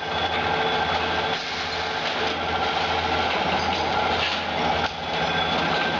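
Chain flash butt welding machine at work: a steady electrical hum with a dense, even noise over it from the flashing weld.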